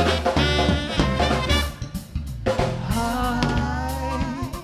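A live band playing a song between sung lines: a drum-kit beat under a bass line, with held melodic parts coming in near the start and again about halfway through.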